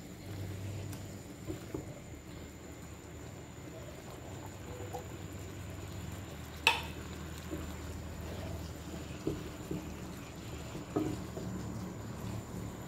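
Vegetables and meat sizzling gently in a wok while a spatula stirs them, with a few soft knocks of the spatula and one sharp clack about seven seconds in. A steady low hum runs underneath.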